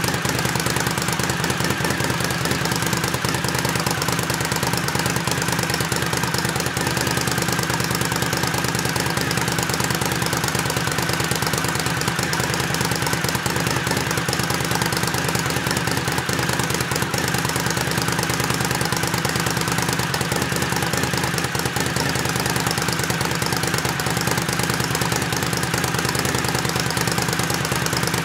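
Suzuki TL1000S 90-degree V-twin idling steadily through a carbon slip-on muffler with its baffle removed.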